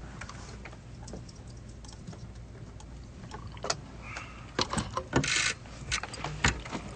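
Handling noise: scattered small clicks and a brief jangling rattle about five seconds in, over a low steady hum.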